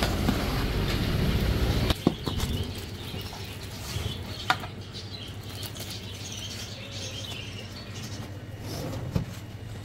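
A low rumble for the first two seconds, then sauced Manchurian sliding and plopping out of a large aluminium pot onto a steel serving plate, with a few sharp metal clinks.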